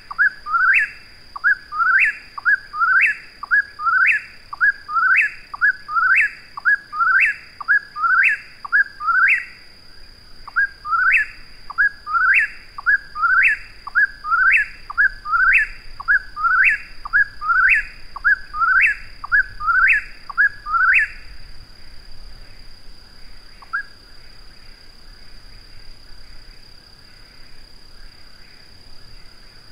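Eastern whip-poor-will singing its repeated three-note 'whip-poor-will' phrase about once a second, each phrase ending in an upward sweep. There is a brief pause about a third of the way in. The song stops about two-thirds through, leaving only faint calls.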